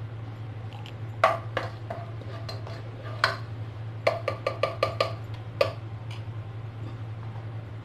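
Black plastic ladle knocking against the side of a ceramic-lined pot while chili flakes are stirred through hot oil: a few separate knocks, then a quick run of about six taps four to five seconds in. A steady low hum runs underneath.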